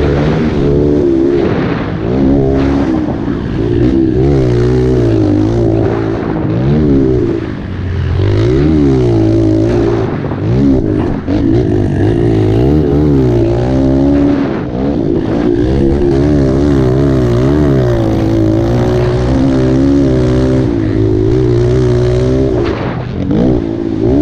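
Pit bike engine revving hard and dropping back again and again, its pitch rising and falling every second or two as the rider works the throttle and shifts through the turns of a dirt track.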